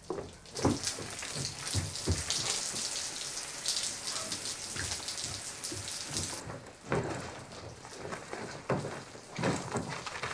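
Shower running: water spraying and splashing. The bright hiss drops away about six seconds in, leaving softer, patchier splashing.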